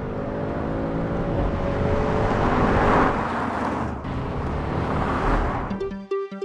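Audi S4 Avant's turbocharged 3.0-litre V6 under acceleration, its engine note rising in pitch and getting louder to a peak about three seconds in. A cut about four seconds in brings a second pass, and electronic music comes in near the end.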